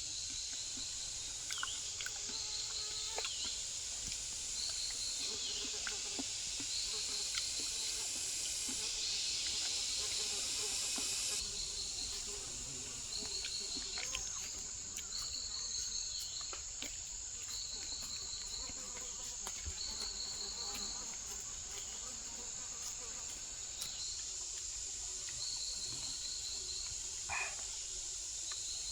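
Insects calling: a steady high-pitched drone, with a shorter pulsed trill repeated every second or two.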